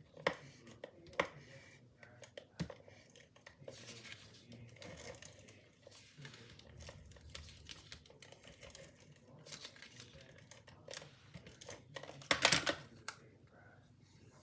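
Paper card stock being handled on a desk: soft rustling, sliding and light taps as a panel is positioned on a card, with a louder rustle of paper about twelve seconds in.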